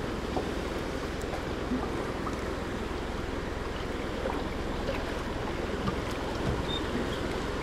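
Steady wind and sea noise around a small fishing boat, with a few faint clicks scattered through it.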